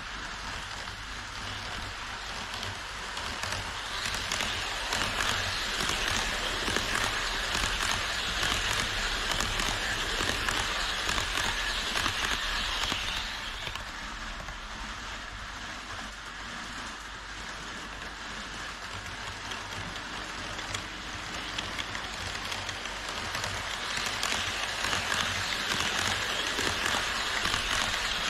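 HO-scale model trains running on Kato Unitrack: a steady rattling hiss of wheels rolling on the rails. It grows louder from about four seconds in, drops back after about thirteen seconds, and swells again near the end as the E5 shinkansen model approaches along the viaduct.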